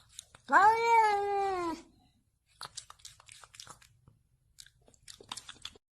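A domestic cat gives one long meow that rises and then slowly falls in pitch. Faint scattered clicks follow.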